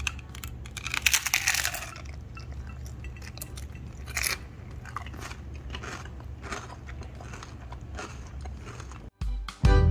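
A bite into a crisp fried taco shell, crunching about a second in, then chewing with scattered smaller crunches and one sharper crunch midway.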